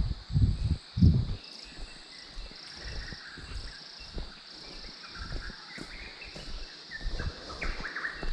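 Tropical forest ambience: a steady high insect drone with birds calling now and then. A few low thumps in the first second or so are the loudest sounds.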